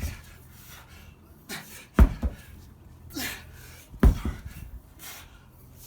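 Three heavy thuds about two seconds apart, each followed closely by a lighter knock, one per swing of a lead-shot-filled 53 lb steel sledgehammer, with hard panting breaths between the strokes.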